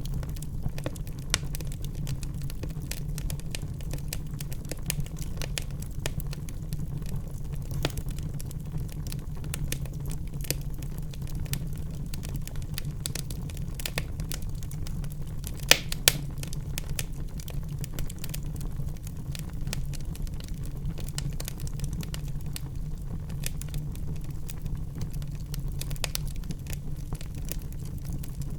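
Wood fire crackling in a fireplace: a continual patter of small snaps over a low steady rumble, with two louder pops in quick succession a little past the middle.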